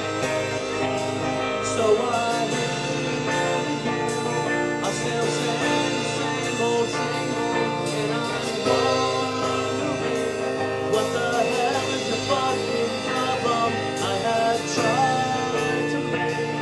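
Live rock band playing: electric guitars and drums with cymbals, and a voice singing over them.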